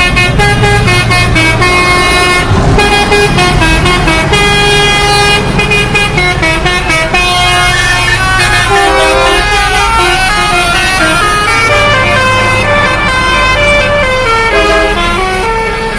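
A telolet basuri horn, a multi-trumpet truck air horn, plays a tune of held notes that step up and down in pitch, over a steady low hum.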